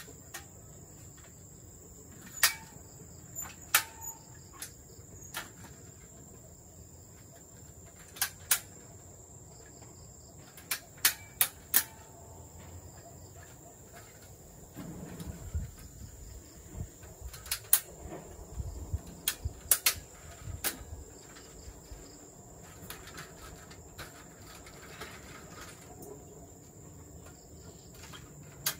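Steady high-pitched drone of crickets, with scattered sharp knocks and clicks throughout and a busier stretch of knocking and scraping in the middle.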